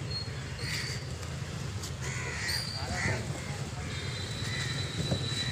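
Crows cawing repeatedly, a string of short harsh caws, over a steady low rumble.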